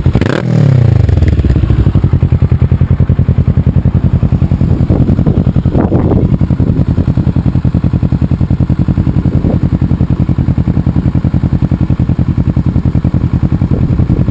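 Kawasaki Ninja 650R parallel-twin engine idling through a Two Brothers aftermarket exhaust, with a steady, evenly pulsing beat.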